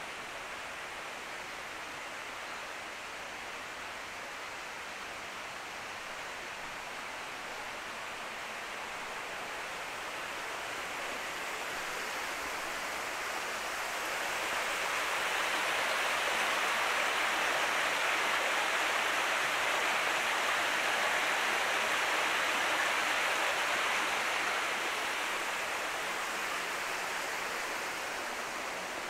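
Running water with a steady rush, growing louder toward the middle and fading again near the end.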